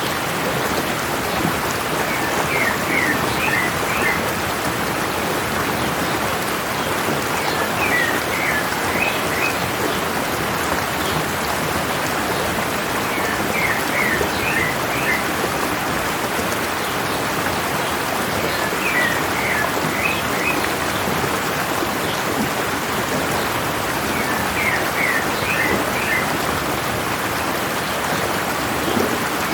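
Mountain stream water running steadily. Over it, a songbird repeats a short phrase of several quick high chirps about every five to six seconds.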